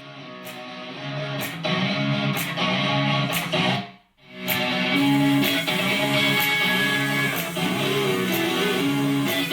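Guitar-led instrumental music played back through a Bose portable Bluetooth speaker, with strummed electric guitar over a steady beat. It breaks off for a moment about four seconds in, then carries on.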